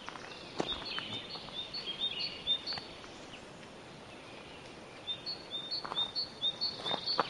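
A small songbird singing two runs of quick, alternating high and low notes, about four a second. Each run lasts about two seconds, with a pause of about two seconds between them.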